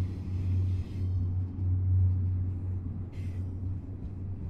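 Double-stack intermodal freight train rolling past: a steady low rumble of wheels on rail, with a high squeal that stops about a second in and a short high hiss about three seconds in.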